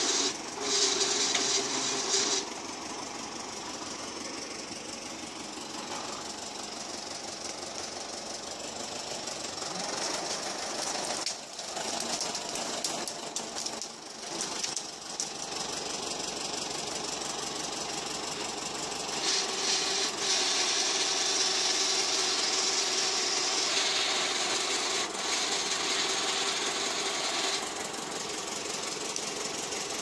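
Tractor engine running steadily as it drives a hydraulic log-loader crane, with a steady whine that comes and goes, louder in the second half.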